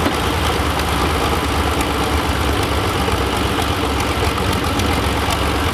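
Antique pulling tractor's engine idling steadily, hooked to the weight-transfer sled before a pull.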